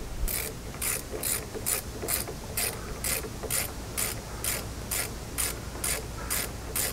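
Hand socket ratchet clicking steadily, about two clicks a second, as it cranks a lag screw down into a wooden beam.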